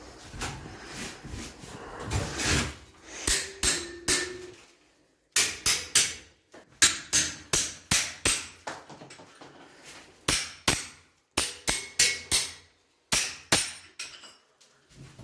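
Hammer blows: runs of sharp strikes at about three a second with short pauses between them, beginning about five seconds in after a stretch of quieter, irregular knocking.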